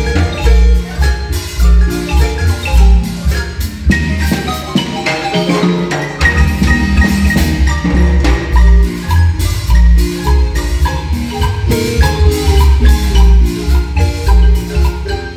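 Guatemalan marimba ensemble playing a dance tune: several players striking the wooden bars of the marimbas with mallets over a steady low bass line. The bass drops out briefly about five seconds in and returns a second later.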